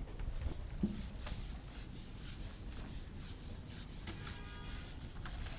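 Faint rubbing on a whiteboard, with a short squeak a little after four seconds in.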